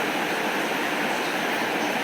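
Heavy rain falling steadily, a dense, even hiss with no thunder or other separate sounds standing out.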